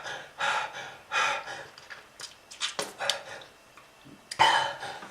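A person breathing hard in a run of short, rasping gasps, the loudest near the end: the labored breathing of a smoker's lung disease.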